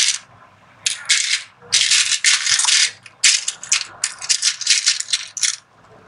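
Small plastic snap buttons rattling in a compartment box as a hand sifts through them. The clattering comes in several short bursts with brief pauses and stops near the end.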